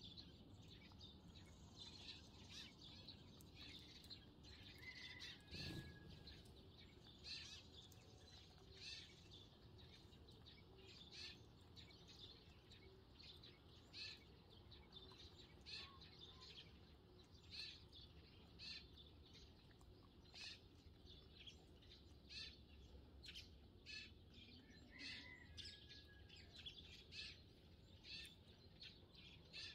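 Eurasian tree sparrows chirping faintly: short, sharp chirps about one or two a second, with an occasional thin whistled note.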